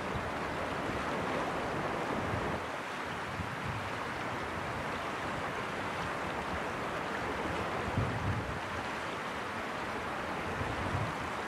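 Shallow river water rippling and rushing over a stony bed, a steady wash of noise, with gusts of wind buffeting the microphone now and then, the strongest about eight seconds in.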